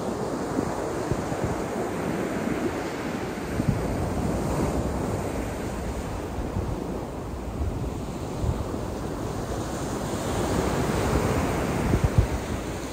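Small waves breaking and washing up a beach, the surf swelling and easing in turn, with wind buffeting the microphone in low thumps that are strongest near the end.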